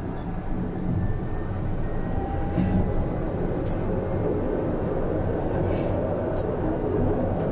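Tram running along its track, heard from the driver's cab: a steady rumble of wheels on rails and running gear, with a few faint clicks scattered through.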